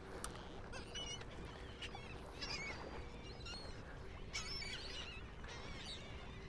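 A flock of seabirds calling over and over, short harsh calls overlapping one another, as they work a school of baitfish driven to the surface by feeding fish. Under them runs a faint steady hum.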